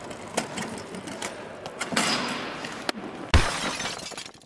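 A few sharp clicks, then one loud crash about three seconds in, followed by a shattering, rattling clatter that trails off for about a second.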